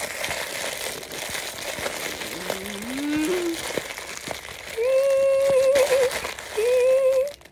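Crinkling of a blind-bag toy wrapper being handled and opened. A voice hums a short rising note about halfway through, then two longer held notes near the end, the louder part.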